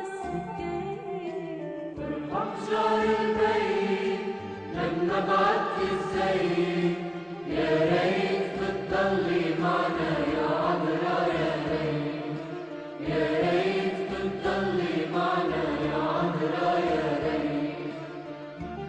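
Music: an Arabic devotional hymn to the Virgin Mary, voices chanting in several long sung phrases.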